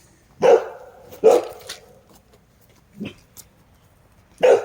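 Dog barking in short bursts, about four barks with pauses between them, at a visitor arriving.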